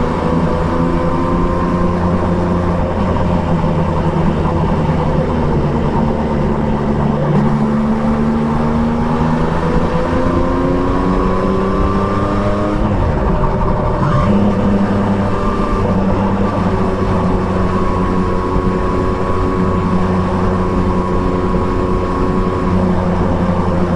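Triumph Trident 660 inline three-cylinder motorcycle engine with an Akrapovic exhaust, under way: the engine note climbs and eases over several seconds, drops sharply and picks back up about halfway through, then holds steady.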